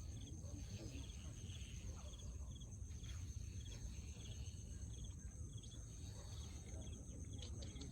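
Crickets chirping: a steady high trill with short chirps repeating about twice a second over it, above a steady low rumble.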